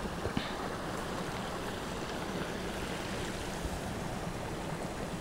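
Steady rushing noise of outdoor wind on the microphone, with no distinct events apart from one faint tap about half a second in.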